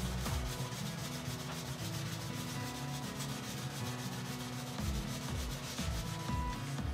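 A small folded piece of sandpaper is rubbed rapidly back and forth along the cut edge of a vegetable-tanned leather piece, making a quick, even run of scratchy sanding strokes. This is edge sanding, done to smooth the leather edge before finishing.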